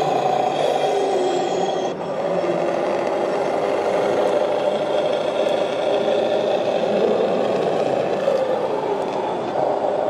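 Radio-controlled scale model Scania truck driving: a steady motor-and-gear whir with some rattle, its pitch sliding up and down as it changes speed. There is a short break about two seconds in.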